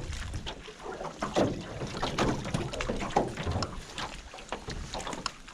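Water splashing and lapping against a small john boat's hull, with scattered knocks and wind buffeting the microphone.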